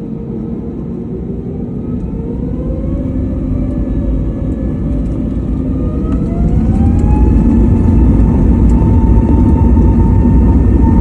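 Airbus A320neo's CFM LEAP-1A turbofan engines spooling up to takeoff thrust: a whine rises in pitch and grows louder over about five seconds, then holds at a steady high tone over a loud rumble.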